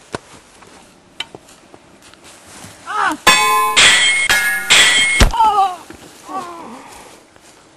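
Metal sword blades clashing, several loud ringing clangs in quick succession about three to five seconds in, with short falling-pitched cries around them.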